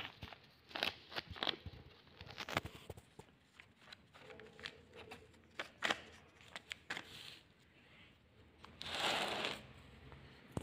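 Hands handling a thin plastic bag and lettuce seedlings: scattered light crinkles and clicks, with a louder rustle lasting under a second about nine seconds in.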